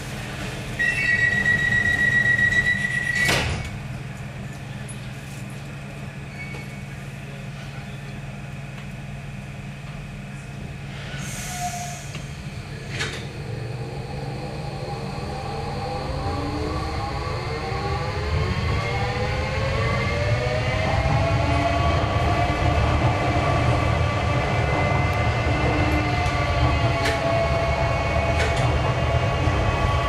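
Docklands Light Railway train: a steady high beep lasting a couple of seconds ends with a clunk, then the electric traction motors whine rising in pitch as the train accelerates away and levels off, over the low rumble of the car on the track.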